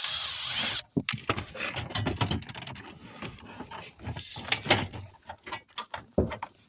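Plastic dashboard trim being worked loose by hand and with tools: a burst of hiss at the start, then a string of clicks, scrapes and knocks.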